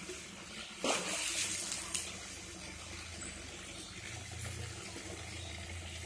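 Steady running water, with a brief louder rush about a second in.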